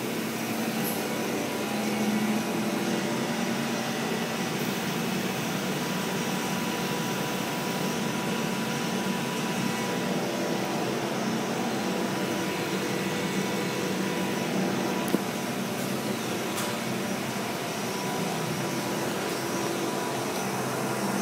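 Steady noise of a semiconductor fab's air handling and machinery, with several faint steady tones running through it and one short click about fifteen seconds in.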